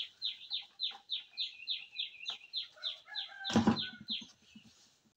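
A bird calling a quick run of short, high, falling notes, about four a second for some four seconds. A loud knock comes about three and a half seconds in.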